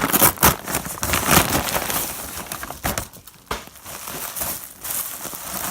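A package being opened and unpacked by hand: irregular rustling and crinkling of packing material, busiest in the first few seconds and then sparser.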